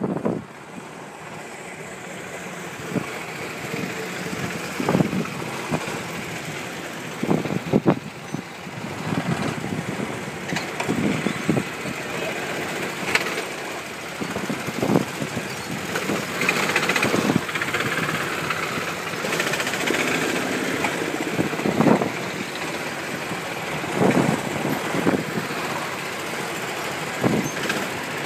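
Several go-kart engines running as the karts drive along the track, the engine noise swelling and fading with many short loud bursts.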